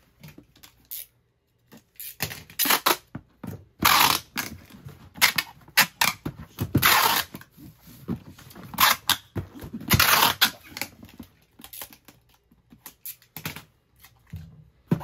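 Packaging being handled while a pair of sneakers is packed: crinkling, rustling and tearing in short, irregular bursts with quiet gaps between them, including a near-quiet pause of about a second early on.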